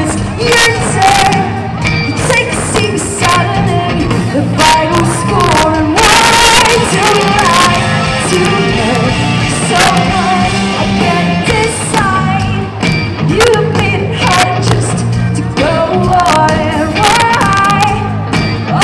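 Live pop-rock band playing loudly: electric guitars and drums with a woman singing lead, a cymbal crash about six seconds in.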